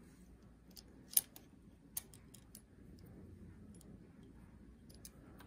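Small scattered clicks and taps of fingers and thread against the metal thread guides and tension assembly of an Atlas sewing machine while it is being threaded. The sharpest clicks come about one and two seconds in.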